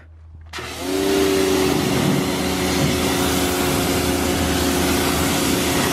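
Greenworks 1600 PSI electric pressure washer starting about half a second in as the trigger is pulled: the motor and pump hum rises briefly in pitch and settles to a steady tone under the loud, steady hiss of the water jet striking the car.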